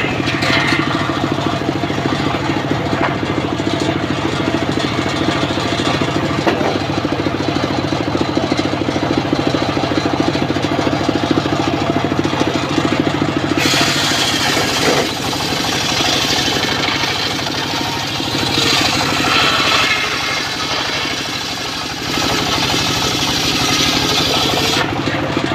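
The engine of a homemade circular saw bench running steadily, with the spinning blade ripping lengthwise through timber to cut rafters. The cut adds a loud rushing hiss over the engine from about halfway through until near the end.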